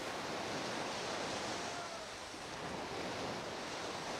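Ocean surf washing up a beach around a person's feet: a steady rushing wash of waves.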